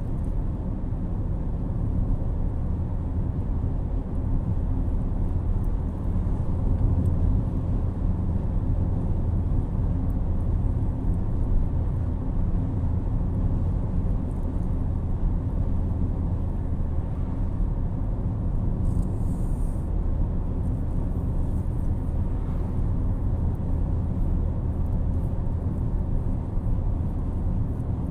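Steady low rumble of a car's road and engine noise, heard from inside the cabin while cruising along the road.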